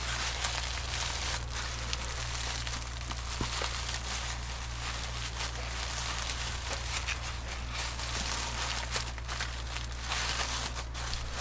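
Pink tissue paper and a lace ribbon rustling and crinkling as hands untie a wrapped gift, with many small crackles throughout. A steady low electrical hum runs beneath.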